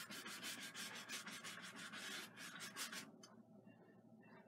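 A 1-inch paintbrush scrubbing oil paint onto a canvas in quick, repeated short strokes. The strokes stop about three seconds in, as the brush is lifted off.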